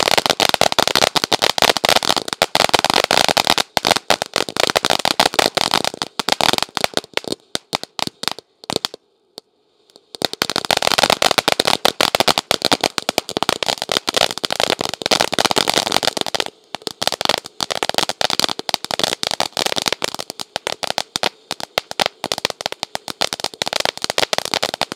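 Ground fountain firework spraying sparks with dense, rapid crackling. The crackling stops for about a second partway through, then starts again and grows sparser later on.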